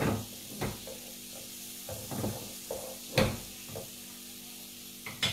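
Cinnamon stick, lemongrass and pandan leaves sizzling in butter and oil in a frying pan, with a wooden spatula scraping and tapping the pan about six times as they are stirred; the loudest stroke comes about three seconds in.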